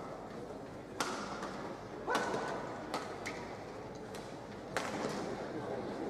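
Sharp, irregular cracks of badminton rackets striking a shuttlecock, about five in a few seconds, echoing in a large hall over a steady background hum of the arena.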